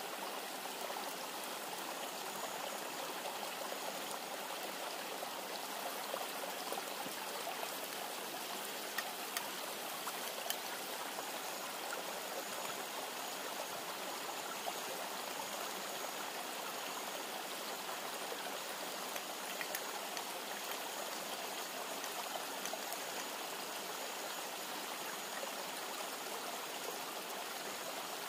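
Steady rushing of a flowing river, with a few faint clicks standing out around the middle.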